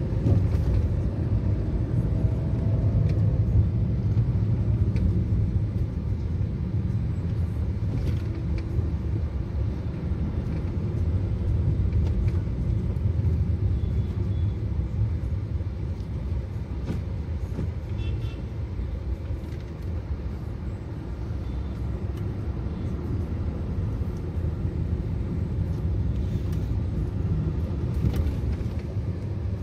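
Steady low rumble of a car driving, heard from inside its cabin: engine and road noise, with a few faint ticks.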